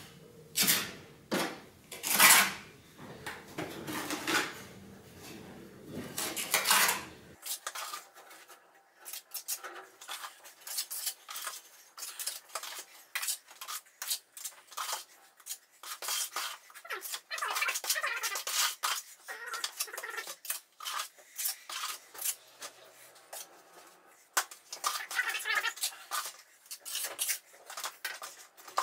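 Hand trowel scraping and clicking against a plastic bucket and masonry as wet mix is scooped up and spread. There are a few louder, longer scrapes in the first several seconds, then a steady run of quick short scrapes and taps.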